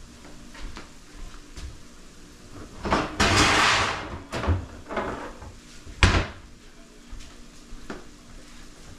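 Kitchen cabinet being rummaged for a wire cooling rack: about three seconds in, a second of loud metal clattering and scraping, then a few knocks, then a cabinet door shut with a sharp bang.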